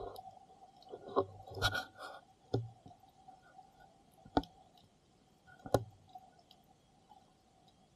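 Underwater recording: a handful of sharp clicks and knocks over a faint steady hum, the loudest two about four and a half and just under six seconds in.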